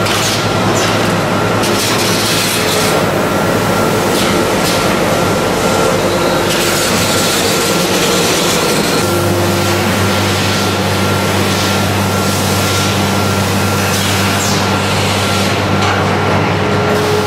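Factory noise of a melamine short-cycle press line running: a steady mechanical rumble from motors and roller conveyors, with a constant thin whine. A lower motor hum starts up about halfway through.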